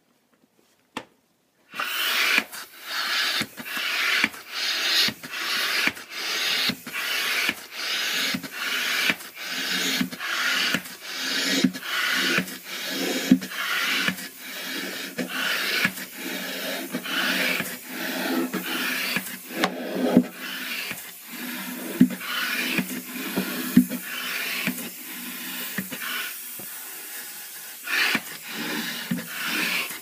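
Hand air pump worked in steady strokes, each pull and push giving a rasping whoosh of air, about one and a half strokes a second, starting about two seconds in. The air is filling a large balloon.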